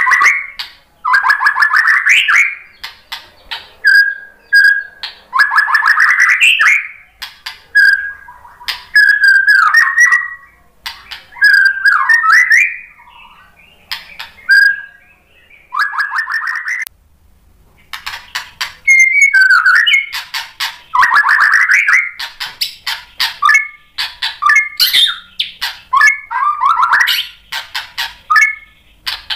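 Male white-rumped shama (murai batu) in full song, loud and varied: repeated bursts of very fast rattling trills a second or two long, interspersed with short whistled notes and brief pauses.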